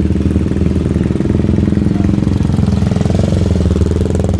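CCM Spitfire single-cylinder motorcycle engine running with a loud exhaust at a steady idle, then revving up about three seconds in as the bike pulls away past.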